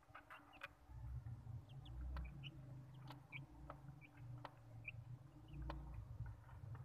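Young Australorp chicks peeping softly in short, scattered calls, with sharp little clicks and scratches from pecking and scratching in the feed and litter.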